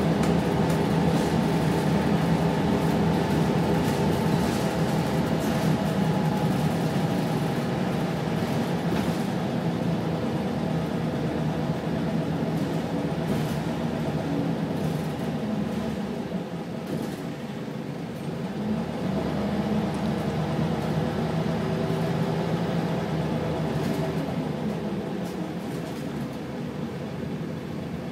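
Scania diesel engine and drivetrain of a Wright Solar single-deck bus heard from inside the passenger saloon while it drives: a steady engine drone whose pitch and loudness drop about two-thirds of the way through as the bus eases off, then climb again as it pulls on.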